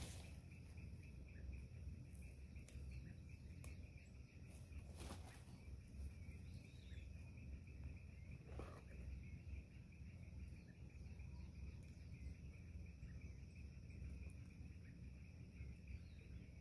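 Faint outdoor ambience: a steady high insect drone over a low rumble. A couple of soft knocks about five and nine seconds in come from hands working potting soil in a plastic pot.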